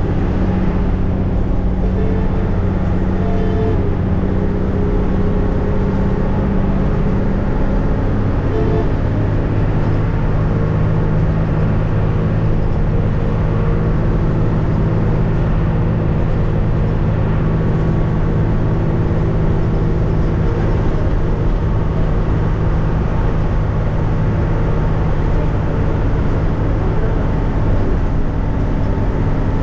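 Intercity bus running steadily at highway speed, its engine hum and road noise heard from inside the cabin; the engine note settles slightly lower about eight seconds in.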